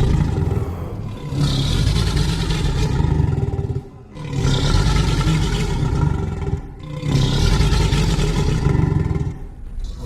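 Reconstructed dinosaur vocalization: three long, low, rough calls of about three seconds each, with short breaks between them.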